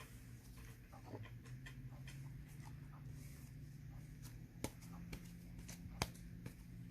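Slime being squished and worked by hand, with faint scattered clicks and small pops; two sharper pops stand out in the second half.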